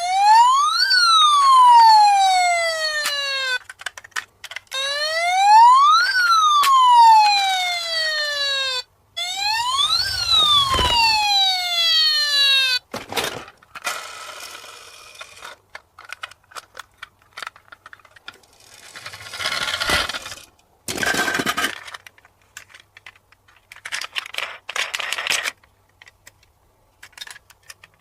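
Toy police car's electronic siren sounding three slow wails, each rising and then falling in pitch over about four seconds. After about thirteen seconds the siren stops and several short bursts of rattling and scraping follow.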